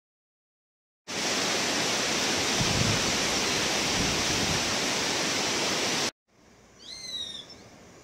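River water rushing over a wide, rocky riverbed: a steady, loud hiss that starts about a second in and cuts off abruptly about six seconds in. After that, against a faint background, a bird gives one short call of a few quick descending whistled notes.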